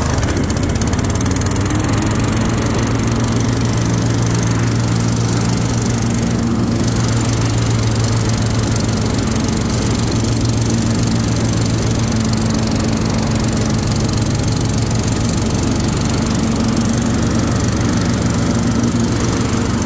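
Troy-Bilt Mustang 50 zero-turn riding mower's 24-horsepower engine running steadily.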